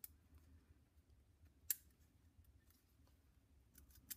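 A few light metallic clicks over near silence, one sharper than the rest just under two seconds in: a thin steel oil-ring rail being worked by hand around a piston's bottom ring groove.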